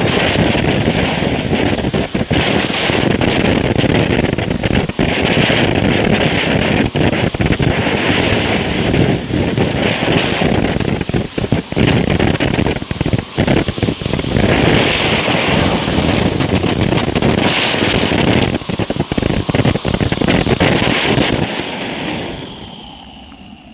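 Low-noise ground fountain firework burning: a steady spraying hiss full of small crackles and pops, dying down in the last couple of seconds as the fountain burns out.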